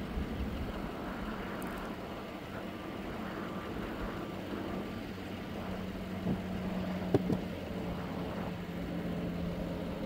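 Large four-wheel-drive tractor's engine running steadily as it drags cage-wheel rollers through a flooded field, with a few sharp knocks a little past halfway.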